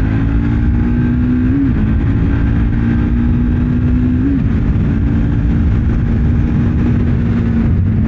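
Triumph Speed 400's single-cylinder engine accelerating hard through the gears. Its pitch climbs, then drops at upshifts about a second and a half and about four seconds in, then holds steady. Heavy wind noise on the microphone.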